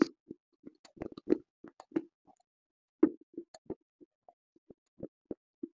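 Close-miked chewing of a crunchy snack right at a small microphone: irregular crisp crunches and mouth clicks, a few each second, the loudest about three seconds in.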